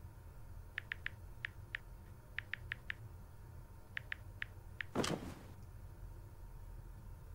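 Smartphone on-screen keyboard clicking as it is typed on: about a dozen quick taps in three short runs. About five seconds in, one brief loud whoosh that dies away within half a second.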